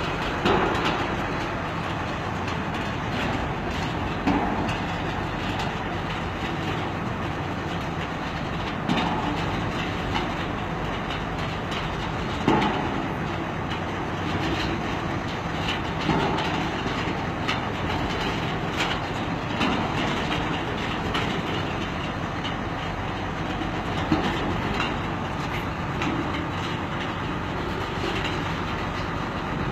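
Machinery running steadily, with a sharp knock or clank standing out every few seconds.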